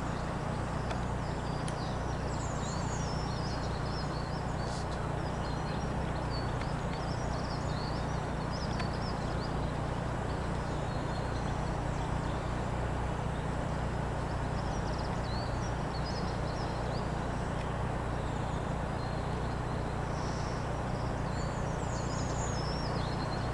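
Steady low rumble of an Airbus A320's jet engines climbing away in the distance, with small birds chirping throughout.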